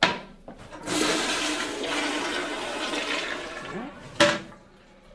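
Toilet being flushed: a click of the handle, then about three seconds of rushing water, and a sharp knock near the end.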